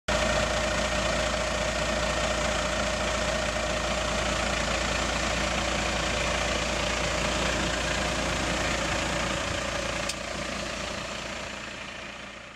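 Volvo FH tractor unit's diesel engine running steadily at low revs with a low rumble, easing off about ten seconds in and fading out near the end.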